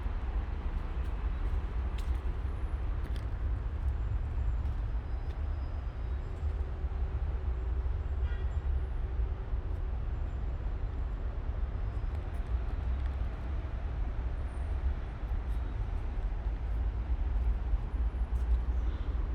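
Steady low outdoor rumble, with no speech and no distinct events.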